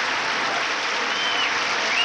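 A large audience applauding steadily, a dense unbroken clapping.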